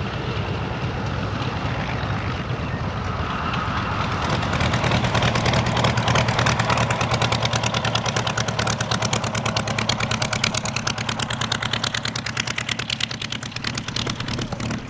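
Piston warbird engines running at low power on the taxiway. From about four seconds in, a P-51 Mustang's V-12 engine idles with a rapid, even beat as it taxis close by. It is loudest a few seconds later, then eases.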